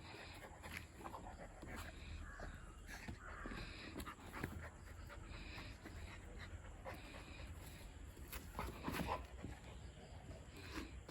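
A dog panting in repeated breathy puffs, with a few soft knocks and scuffs; the loudest comes about nine seconds in.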